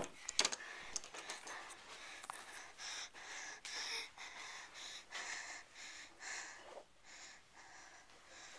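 A girl breathing close to the microphone, about one breath a second, with a few clicks of camera handling near the start.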